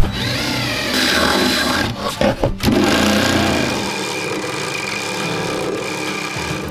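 Power tool spinning up and cutting a hole for a diesel heater's mounting plate, a steady grinding, rasping run with a couple of brief breaks about two seconds in.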